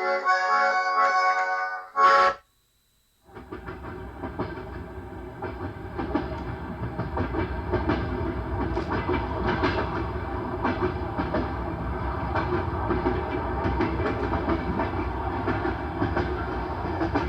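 Accordion music stops about two seconds in with a brief loud sound, then silence for about a second. Then a train runs steadily, its wheels clattering on the rails.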